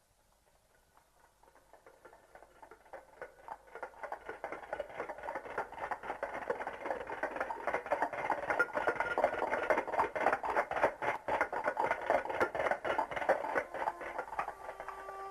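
A dense clatter of many small irregular knocks fades in from near silence and grows steadily louder over about nine seconds. A brass fanfare of sustained trumpet and horn notes begins near the end.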